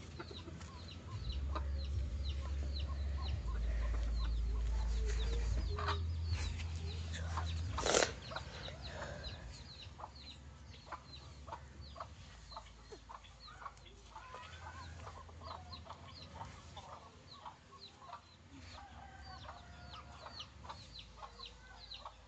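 Chickens clucking, with many short high chirps throughout. A low rumble lasts for several seconds near the start, and a single sharp knock comes about eight seconds in.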